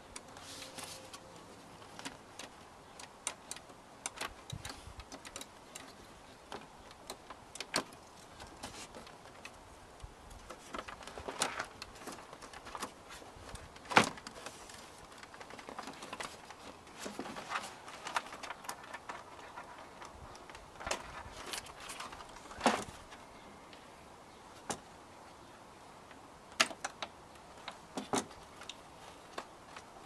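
Scattered plastic clicks and knocks as wiring connectors are unclipped from the back of a 2001 VW Beetle's inner door trim panel, with the sharpest click about halfway through.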